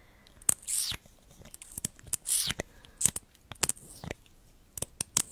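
Plastic lip gloss tube and applicator wand handled close to the microphone: a series of sharp clicks and a couple of short, high scraping swishes.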